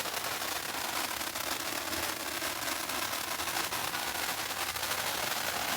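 Lit consumer firework spraying sparks: a steady hiss laced with dense fine crackling, no loud bangs.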